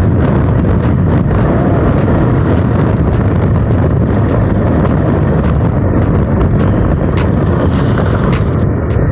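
Motorcycle riding along a road: steady wind rush on the microphone over the engine's rumble, with scattered sharp clicks.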